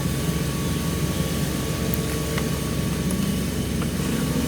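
A steady low mechanical rumble, like an engine running, with a few faint clicks.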